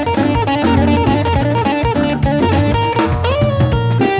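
Jazz combo playing: a semi-hollow electric guitar solos in quick single-note runs over Hammond organ and a drum kit.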